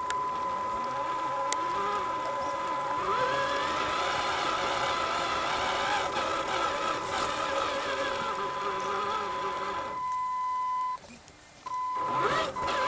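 Electric drive of a Tamiya TXT-1 radio-controlled monster truck running, heard up close from on board: a steady high whine, with a motor pitch that slides up and down as it drives. It cuts out for under a second near the end, then starts again.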